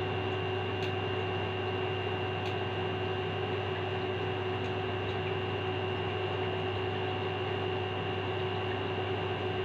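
Electric fan running, a steady hum with a faint high whine. A couple of very faint ticks sound in the first few seconds.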